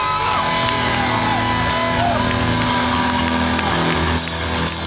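Hardcore punk band playing live through a club PA, with loud electric guitar and bass, taken from within the audience, with some crowd shouts.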